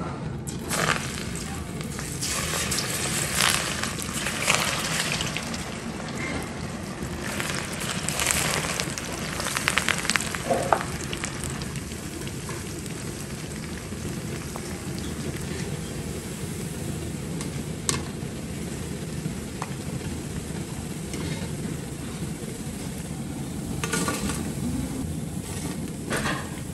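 Battered baby corn deep-frying in hot oil in a kadai: a steady sizzling and bubbling. It is busier in the first ten seconds or so, as pieces are dropped in. Near the end it grows louder briefly as the pieces are scooped out with a wire strainer.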